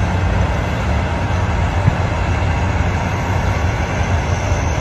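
Steady low rumble of heavy construction machinery running, crawler cranes and a wheel loader at work, with a small knock about two seconds in.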